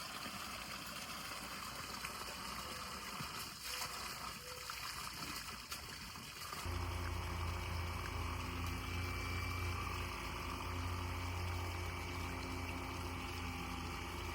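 Water running steadily out of a drainage pipe at low flow. About seven seconds in, a steady low hum joins it.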